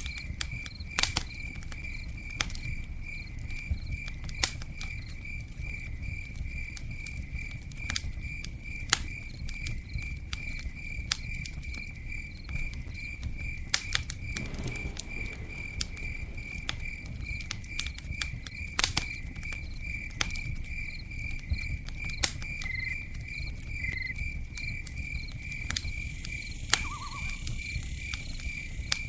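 Campfire crackling, with irregular sharp pops over a steady low rumble of burning wood. Behind it an insect chirps in a steady, even pulse.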